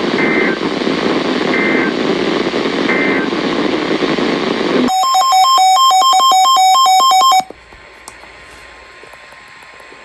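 Weather radio static carrying three short two-tone digital data chirps about a second and a half apart, the pattern of the SAME end-of-message bursts that close an Emergency Alert System weather warning. About five seconds in, a loud electronic beeping that alternates between two pitches runs for about two and a half seconds, then cuts off to a fainter hiss.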